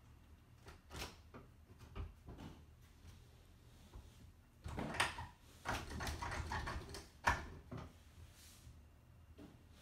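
Footsteps crunching over grit and debris on a bare floor. A few separate clicks and knocks come first, then about three seconds of dense crunching from halfway through, ending with a sharp knock.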